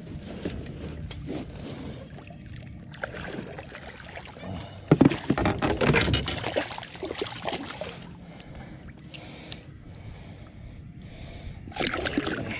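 A hooked fish thrashing and splashing at the surface beside a small jon boat, loudest about five to seven seconds in, with another burst of splashing near the end as it is brought to the side.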